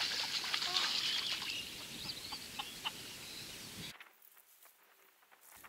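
Outdoor ambience: a steady high hiss with a few short bird chirps, fading away and then cutting abruptly to near silence about four seconds in.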